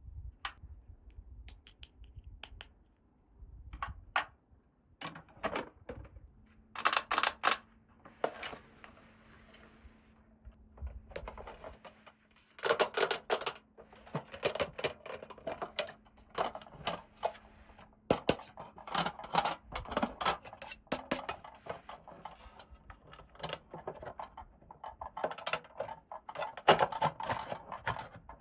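Small plastic toy pieces being handled and fitted together: irregular clusters of clicks, taps and scrapes with short pauses between.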